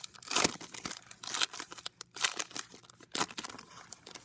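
Trading-card pack wrapper crinkling and tearing as it is opened by hand, in irregular rustles with a few louder rips.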